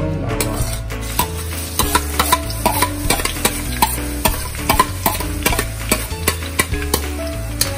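Minced garlic dropping into hot cooking oil in a stainless steel wok and frying: a steady sizzle dotted with many sharp crackles and pops.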